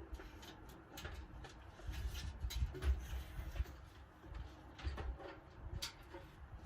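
Scattered clicks, knocks and low thuds of a PC case and its panels being handled and opened.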